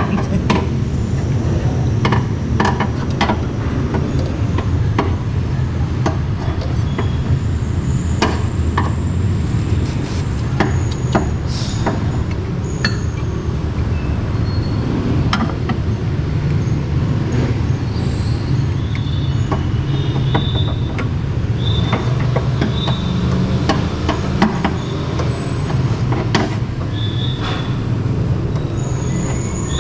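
Steady low rumble of road traffic and engines, broken by scattered short metallic clicks and knocks, with a few brief high squeaks.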